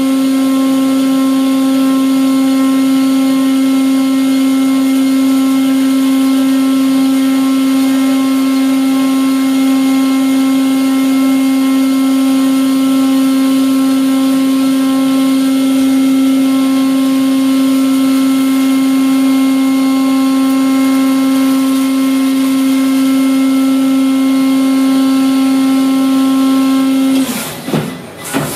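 Brother S700X1 CNC vertical machining centre's spindle running at a steady high speed, a loud even whine over a steady hiss of machining. Near the end the spindle winds down and spins back up.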